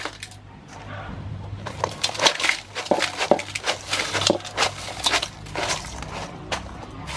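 Crushed ice poured from a metal bowl into a large aluminium basin, crunching and clattering in irregular bursts against the metal. The loudest part comes from about two seconds in to near the end.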